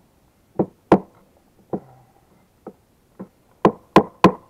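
Axe chopping off the end of a snowmobile's frayed starter cord: about eight sharp blows at uneven intervals, with three quick, loud ones near the end.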